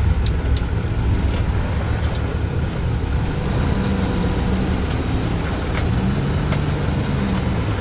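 Off-road vehicle's engine running at low revs while crawling down a large rock ledge, its pitch rising and falling slightly.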